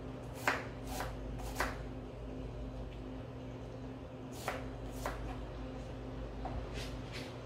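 Kitchen knife shredding cabbage finely on a plastic cutting board: sharp, irregular taps of the blade striking the board, a few close together, then a pause, then more, over a faint steady hum.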